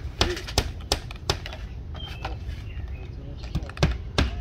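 A series of sharp knocks and taps, two or three a second in short runs, with the loudest cluster near the end, over a steady low rumble.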